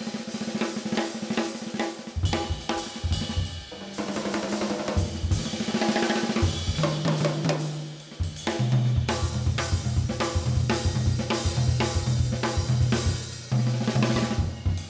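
Jazz drum kit played busily and loud: a dense, uneven run of snare, bass drum and rimshot strokes under hi-hat and cymbals, with low drums ringing between hits.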